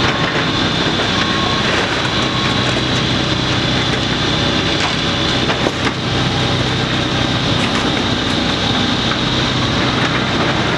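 Large hydraulic excavator's diesel engine running steadily under load as it tears into a building, with a few short knocks and crunches of debris.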